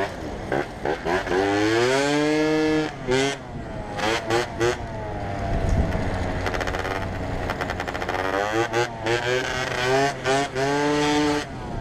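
Motorcycle engine pulling hard, its pitch rising and then breaking off briefly at each gear change, several times over, with wind rushing past the helmet.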